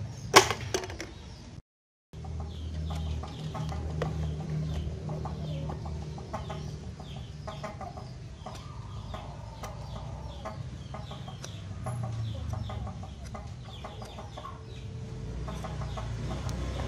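Chickens clucking repeatedly throughout, over a low rumble. A single sharp snap sounds about half a second in and is the loudest thing heard.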